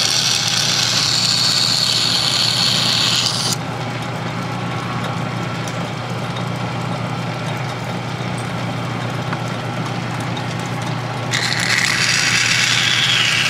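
Metal lathe running with a steady hum while a hand deburring tool scrapes the edge of the bore in the spinning workpiece. The scraping is a loud, high sound that lasts for the first three and a half seconds, stops, and comes back near the end.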